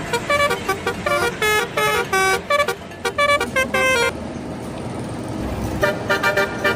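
Telolet horn of an Indonesian bus playing quick runs of short musical notes that step up and down in pitch. It stops for a bit under two seconds in the middle, leaving road noise, then starts again.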